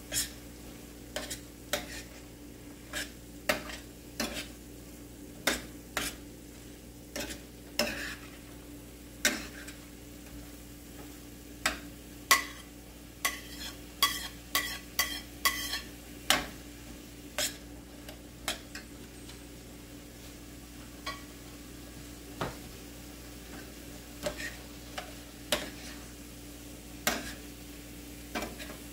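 Metal spoon clinking and scraping against a stainless steel frying pan as diced carrots are tipped in and stirred through sautéing vegetables, over a light sizzle and a steady low hum. The clinks come thick in the first half, then grow sparser.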